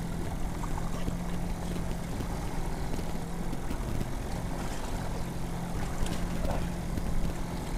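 Fishing boat's motor running steadily, a low even hum that drops away briefly about four seconds in, with wind and water noise around it.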